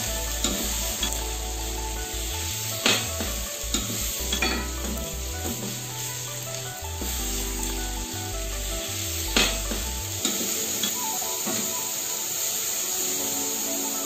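Food sizzling as it fries in a steel wok, with a metal ladle stirring and knocking sharply against the pan several times.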